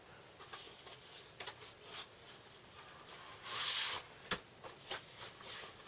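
Handling of a vinyl LP and its sleeve: light clicks and taps, a brief sliding rustle a little past halfway as the disc is drawn out, and a sharp click just after.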